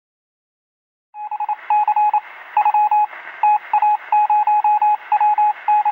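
Morse code sent as a single high beep tone, keyed in short and long pulses, over a steady hiss of radio-like static. It starts about a second in.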